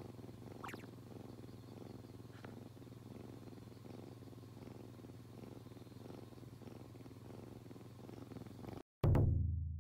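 Kitten purring steadily, a low, even, pulsing rumble. Near the end it cuts off and a loud low musical note sounds and fades away.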